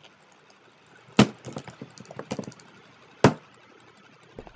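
Two sharp knocks, about two seconds apart, with faint ticking and crackling between them.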